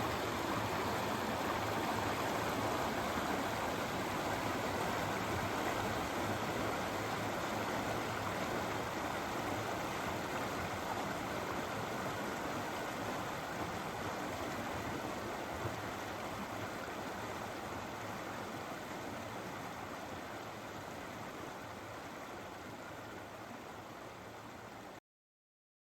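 Stream water flowing steadily, an even rushing noise. It fades slowly over the second half and cuts off to silence just before the end.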